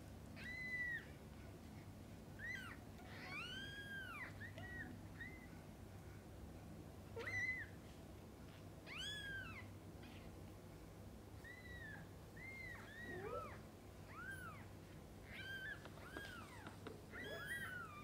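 Newborn kittens mewing: a dozen or more short, high, thin cries, each rising and falling in pitch, scattered through and sometimes overlapping. One lower call slides upward about thirteen seconds in.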